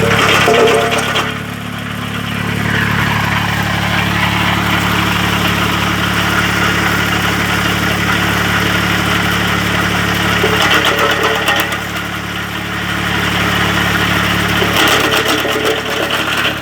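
Branch chipper running steadily under engine power, with louder crunching stretches several times as branches are fed in and chipped.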